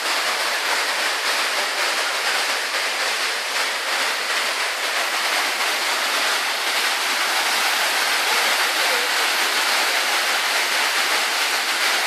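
Large waterfall in heavy, powerful flow: a steady, even rush of falling water and spray.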